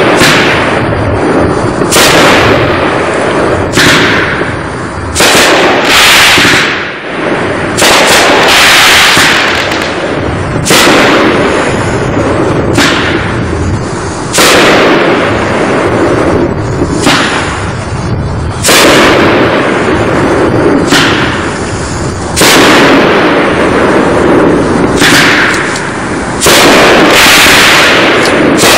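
A 500-gram consumer fireworks cake firing its shots one after another: about a dozen loud bangs, spaced one to four seconds apart, each followed by a fading hiss of the breaking shell.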